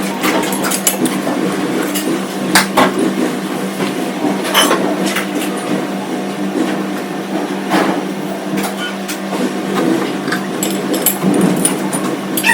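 Workshop machine, most likely a metal lathe, running with a steady hum, with irregular sharp metallic clinks and knocks over it, the loudest about two and a half, four and a half and eight seconds in.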